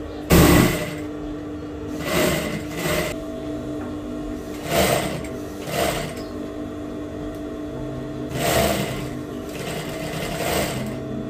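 Industrial straight-stitch sewing machine sewing fabric in short runs: about seven bursts of under a second each, with a steady hum between them.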